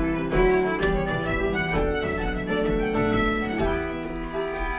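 Irish traditional tune played by a small ensemble: fiddle and concertina carrying the melody, with piano accompaniment and a bodhrán beat.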